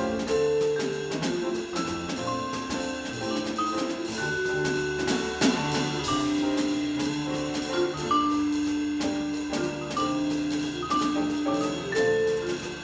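Jazz trio of vibraphone, piano and drum kit playing together: ringing mallet notes on the vibraphone over piano and light drum and cymbal strokes in a steady pulse.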